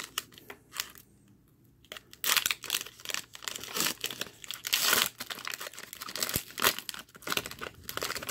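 Foil wrapper of a Pokémon booster pack crinkling and tearing as it is ripped open by hand, in irregular crackles with a short lull about a second in.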